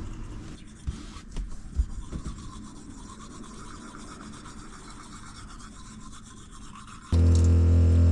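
Two people brushing their teeth: a steady scrubbing and rubbing of toothbrushes, with a few light knocks in the first two seconds. About seven seconds in, much louder music with low sustained tones cuts in abruptly.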